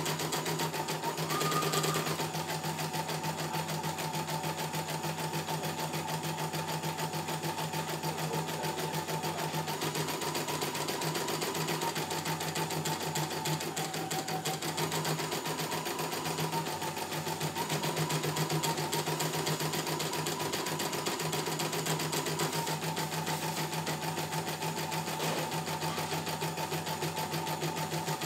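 CNY E900 computerized embroidery machine stitching a design: a steady, rapid needle rhythm with a whining tone that shifts up and down a little in pitch every few seconds.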